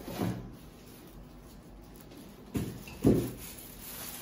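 Cardboard appliance boxes being moved and set down on a wooden table: a soft knock near the start, then two heavier dull thumps about two and a half and three seconds in, the second the loudest.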